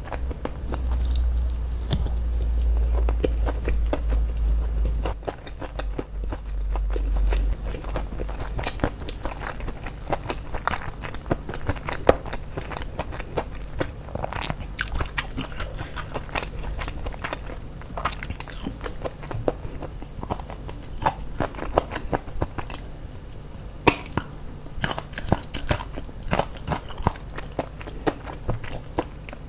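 Close-miked chewing of crispy fried chicken and rice eaten by hand: irregular crunches, bites and mouth clicks. A low rumble runs under the first several seconds.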